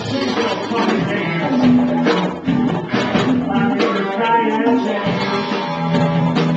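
Live rock band playing amplified through the club PA: acoustic-electric and electric guitars with bass, and a singer at the microphone.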